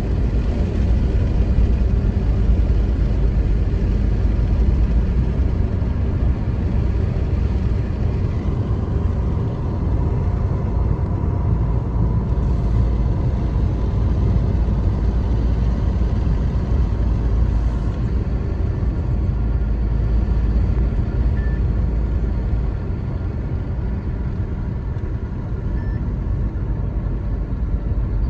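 Steady low rumble of road and engine noise from a moving car, easing slightly near the end.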